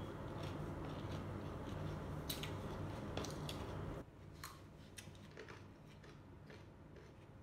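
Raw carrot sticks being bitten and chewed, with sharp crisp crunches every second or so. A steady low hum underneath cuts off about four seconds in.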